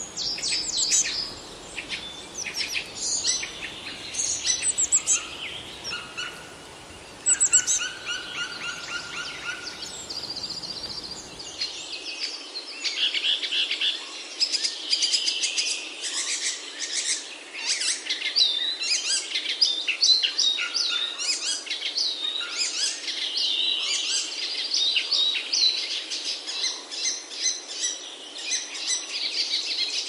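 Several songbirds chirping and singing together, a dense chorus of quick high chirps, trills and whistles. About twelve seconds in, the low background noise drops away suddenly and the chorus carries on.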